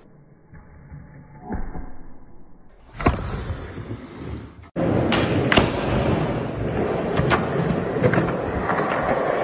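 Skateboard sounds: a few muffled knocks of the board in the first seconds. Then, from about five seconds in, the steady rumble of skateboard wheels rolling on concrete, with several sharp clacks of the board.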